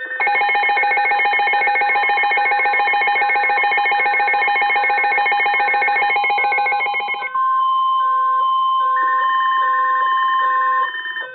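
Electronic emergency alert tones, several sounding together: steady and pulsing beeps at many pitches for about seven seconds, then one steady single-pitch alarm tone near 1 kHz for a few seconds with other beeps pulsing beside it. The tones cut off near the end.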